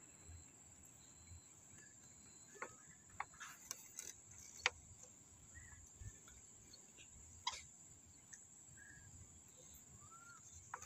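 Near silence: faint outdoor ambience with a steady high-pitched whine, a scattering of brief faint clicks and a few faint short chirps.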